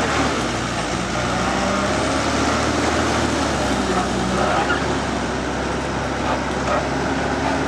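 Engine of a Camox F140 forestry tractor running steadily, with faint wavering higher whines over it around the middle.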